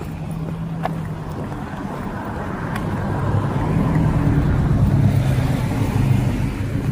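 A motor vehicle's engine running close by, a low steady hum that grows louder from about halfway through and is loudest near the end.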